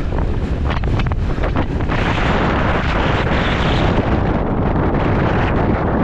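Strong wind buffeting the microphone, a loud steady rumble. A few clicks and rattles come in the first two seconds, and a louder hiss builds from about two seconds in.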